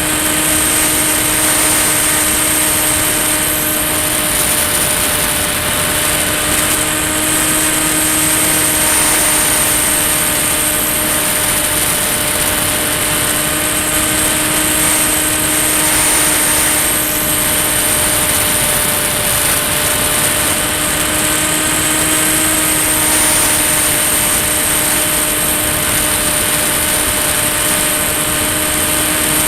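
Electric pusher motor and propeller of a Volantex Ranger EX RC plane in steady cruise, heard from on board: a steady hum with a high whine over a constant rush of air. The pitch drifts only slightly.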